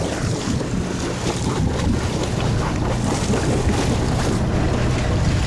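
Fishing boat's engine running with a steady low hum, under wind buffeting the microphone and the wash of water at sea.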